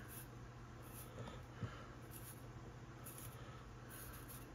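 Faint scratching of a razor blade shaving through the spun hair of a small bass-bug body, with a light tick about one and a half seconds in.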